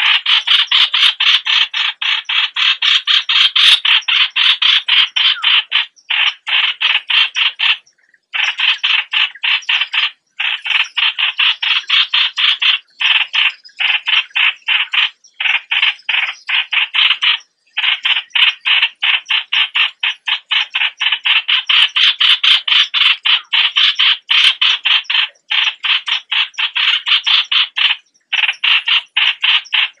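Yellow-vented bulbul's lure call: a rapid, harsh chatter of short notes repeated several times a second, broken by brief pauses every few seconds.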